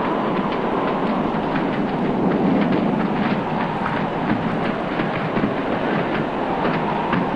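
Storm wind and heavy seas: a steady, dense rushing noise with many scattered sharp crackles.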